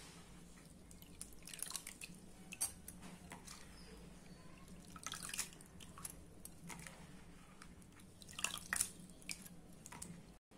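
A hand swishing soaked poha (flattened rice) in water in a plastic bowl and lifting handfuls out: faint scattered splashes and drips, in clusters, the loudest about halfway and near the end, over a steady low hum.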